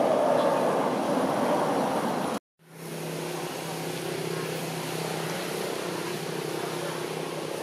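Motor vehicle noise: a broad rumble that cuts off abruptly about two and a half seconds in, then, after a brief silent gap, a steadier, quieter engine hum.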